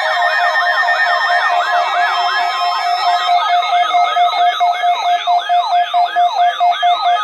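Several weather radios sounding their electronic alert alarms together on receiving the NOAA Weather Radio weekly test: siren-like tones sweeping up and down about three times a second over a steady pulsing beep, the beat growing more even about four seconds in.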